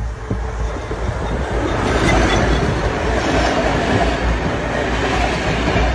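An electric train passing close by, its wheels running on the rails. The rush of noise grows over the first two seconds, then stays loud and steady over a low rumble.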